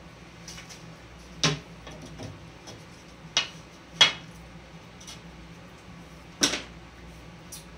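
Four short, sharp clicks and knocks, spread out and the third the loudest, from painting tools being handled and set down. A low steady hum runs underneath.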